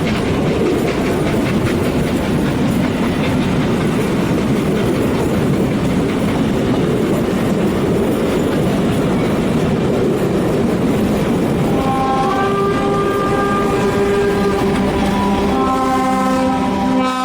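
Steam train running with steady, loud wheel-and-rail clatter; about two-thirds of the way through, its multi-note chime whistle sounds for about five seconds, shifting slightly in pitch as it blows.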